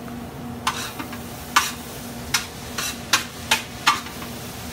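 Metal spatula scraping and clanking against a large stainless-steel pan on a propane burner as vegetables are stirred and sautéed, in a string of sharp strokes about two a second, over a steady frying sizzle.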